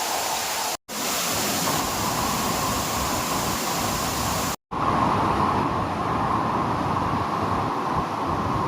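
Steady rushing of a waterfall's falling water, a constant even roar, cutting out completely for an instant twice: about a second in and about halfway through.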